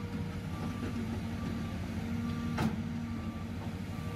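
Caterpillar tracked hydraulic excavator's diesel engine running with a steady low rumble and a faint whine that comes and goes as the hydraulics work. A single sharp knock about two and a half seconds in.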